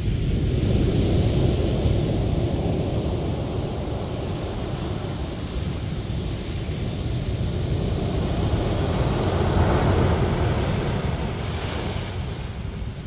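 Ocean surf breaking and washing up a pebble beach, a steady rushing that swells louder about a second in and again around ten seconds in, with wind rumbling on the microphone.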